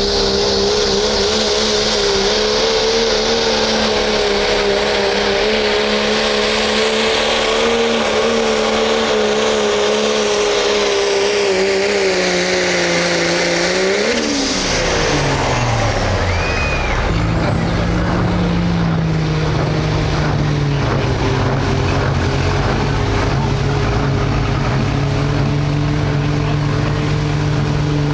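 A pulling truck's engine at full throttle under load, its note wavering. About fourteen seconds in, the revs fall sharply as the throttle is let off, and the engine settles into a lower, steady run.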